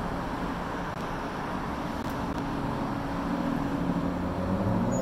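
Road traffic on the street beside the sidewalk: a steady wash of passing cars, with one car's engine growing louder near the end as it comes by.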